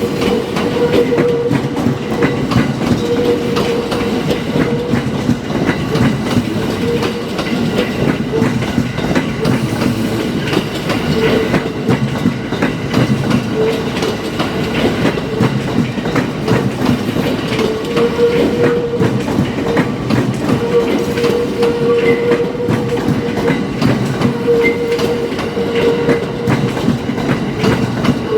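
Yokosuka Line electric train at a level crossing: steady, loud rail and train noise with a mid-pitched hum that comes and goes.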